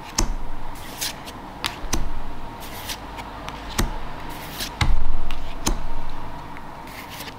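Trading cards being handled: cards slid one by one off a hand-held stack and laid down on a playmat, giving light clicks and rustles, with a louder bump about five seconds in.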